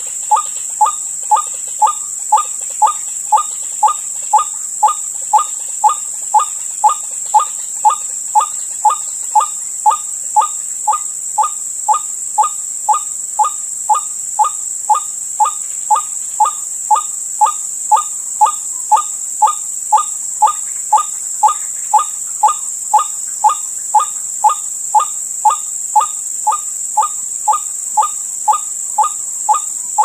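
White-breasted waterhen (ruak-ruak) calling, one short note repeated evenly about twice a second, with a steady high insect drone underneath.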